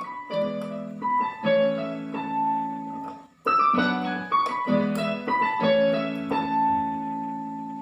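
Roland XPS-10 keyboard playing a short ringtone melody in a piano voice, single notes over held chords. The phrase is played twice with a brief gap between, and the last note is held and dies away.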